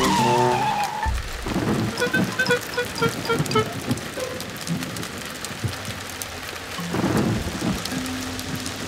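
Steady rain falling, with thunder rumbling about a second and a half in and again near the end. A short gliding tone opens it, and a run of short musical notes sounds a couple of seconds in.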